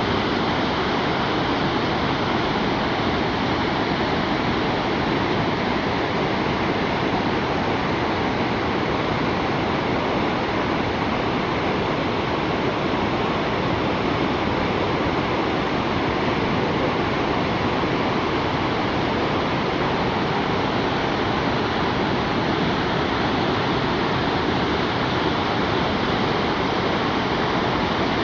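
The Rhine Falls, a large river waterfall, thundering as a steady, loud, unbroken rush of falling water.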